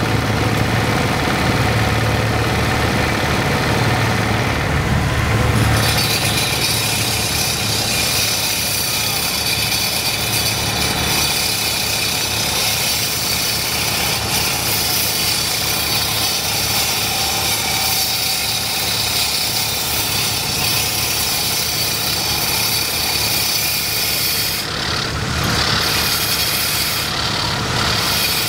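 Walk-behind road cutter driven by a Kubota single-cylinder diesel engine, running with a pulsing low chug. About six seconds in, a loud, high-pitched hissing grind joins it as the saw blade cuts into the road surface.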